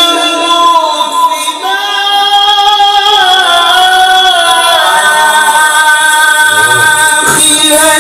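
A man chanting Quranic recitation (tilawah) in the melodic qari style through a microphone and PA loudspeaker. He holds long, ornamented notes in one drawn-out phrase, the pitch stepping up about one and a half seconds in, and the phrase breaks off shortly before the end.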